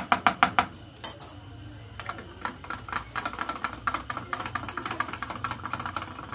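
A spoon taps quickly against a bowl for the first half-second. From about two seconds in, a wire whisk beats yogurt in a plastic tub with rapid, even clicking.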